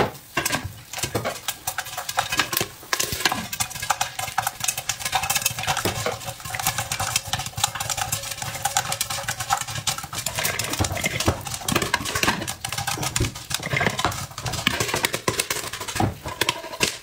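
Popcorn kernels popping inside a closed aluminium pressure cooker: a dense run of sharp pops and taps against the metal. The lid clanks into place at the start.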